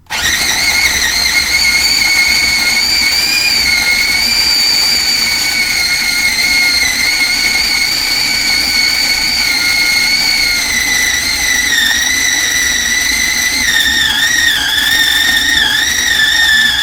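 Electric food chopper switched on and running, chopping chicken: a noisy, steady motor whine that starts abruptly, its pitch dropping slightly about two thirds of the way through.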